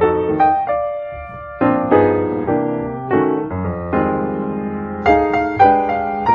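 Background piano music: notes and chords struck one after another, each fading before the next.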